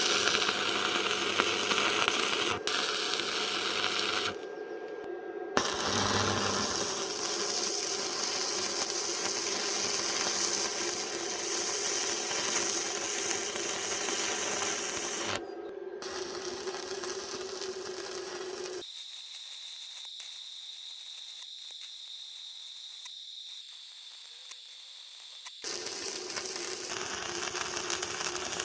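Metal being scoured by a motor-driven tool, a steady hum under a continuous harsh metallic hiss, in several short clips cut together; for a few seconds past the middle it gives way to a quieter, thin high whine.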